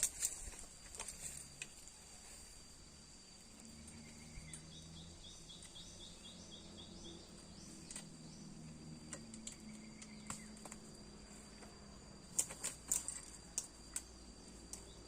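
Outdoor ambience: a steady high insect drone, with a bird giving a run of about ten quick chirps a few seconds in. A few sharp clicks follow near the end.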